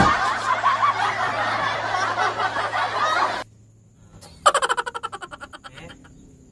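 A burst of laughter that lasts about three and a half seconds and cuts off abruptly. After a short pause comes a single rapid 'ha-ha-ha' laugh that fades away.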